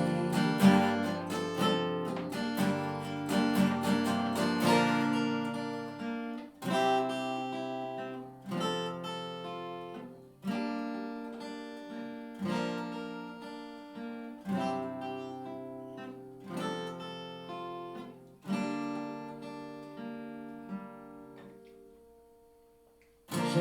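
Acoustic guitar, not plugged in, strummed for about six seconds, then single chords struck roughly every two seconds and left to ring out. The last chord fades almost to silence before strumming starts again near the end.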